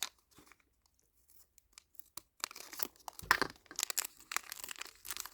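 Thin plastic wrapping crinkling and tearing as a miniature toy item is unwrapped by hand. A few light clicks come first, then steady crackling from about halfway in.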